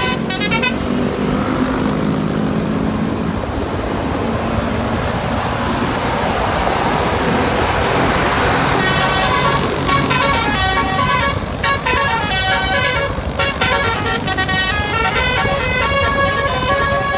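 A bus's multi-tone Basuri 'telolet' air horn plays a stepped melody that breaks off just under a second in. Engine and road noise take over and build until about nine seconds in. Then the telolet horn plays its tune again in short phrases with brief breaks.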